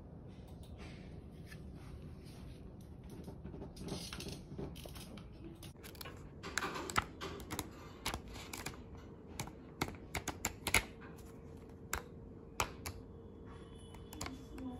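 Computer keyboard being typed on: irregular key clicks, mostly in the middle and later part.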